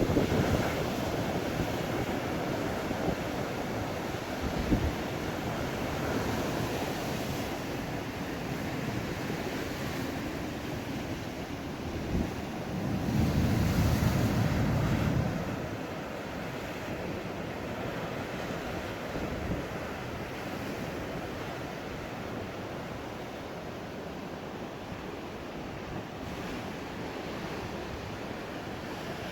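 Rough sea surf breaking and washing, with a louder surge of breaking wave about halfway through. Wind buffets the microphone throughout.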